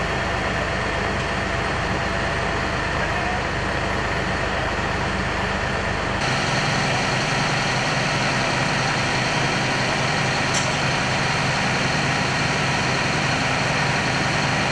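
Fire truck's engine running steadily, a loud low hum with a steady noise over it.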